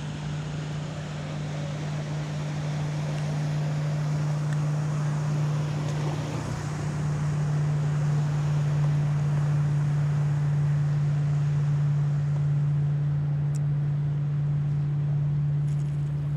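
A motorboat engine drones steadily on one pitch, growing louder over the first few seconds and then holding.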